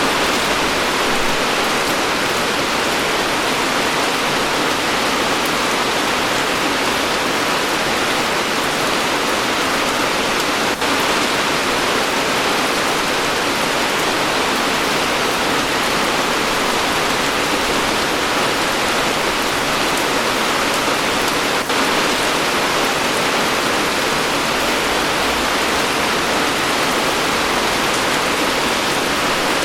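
Heavy rain falling steadily, a dense even hiss, with two very short dips in level about a third and two-thirds of the way through.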